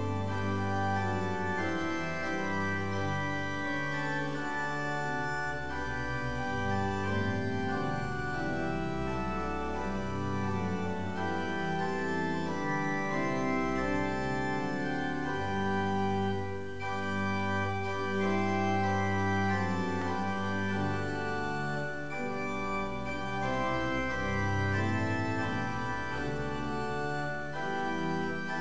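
Church organ playing a prelude of sustained chords over deep bass notes, the harmony shifting every second or two.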